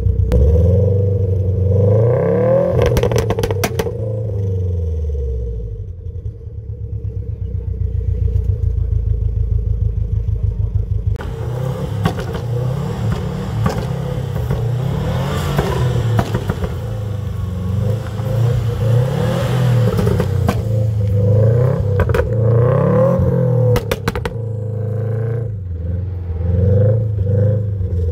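Subaru Impreza WRX STI's turbocharged flat-four on a loud exhaust, revved in quick blips. It then idles steadily for several seconds, and is blipped repeatedly again as the car moves off through the lot.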